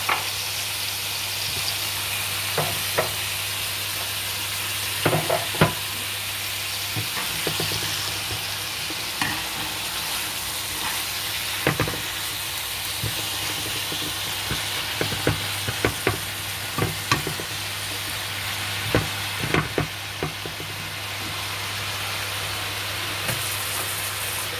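Vegetables and pork sizzling in a nonstick wok while a spatula stirs them, with scattered knocks and scrapes of the spatula against the pan.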